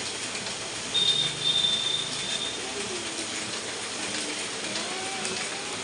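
Ryobi 3302H two-colour offset printing press running, a steady mechanical clatter and hiss. About a second in, a high steady tone sounds for about a second and a half.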